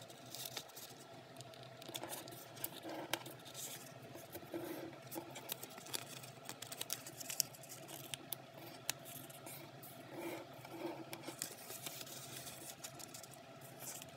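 A small sheet of archival drawing paper being folded and creased by hand on a wooden tabletop: faint rustling and crinkling, with scattered light crackles and scrapes as fingers press the folds flat.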